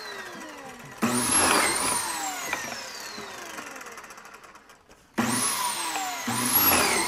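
Kreg pocket-hole machine's drill motor boring pocket holes in a poplar rail. It starts abruptly twice, about a second in and again just after five seconds, and each time its whine falls steadily in pitch and fades as the motor winds down.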